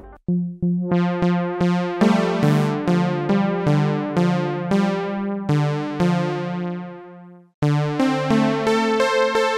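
Xfer Serum software synth patch with two slightly detuned oscillators through an MG Low 24 low-pass filter, whose cutoff is swept by an envelope, played as repeated chord stabs about three a second. Each note starts bright and quickly darkens as the filter closes. The notes fade out about seven and a half seconds in, then start again.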